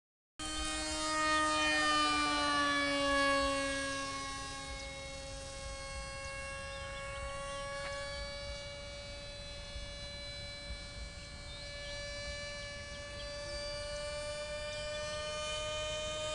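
Radio-controlled model F-117 jet in flight, its motor giving a steady whine. The pitch falls over the first few seconds, then holds nearly level.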